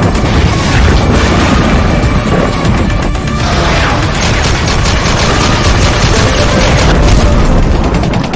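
Dramatic intro music laid over heavy booms and rapid bursts of gunfire sound effects, with a deep rumble underneath.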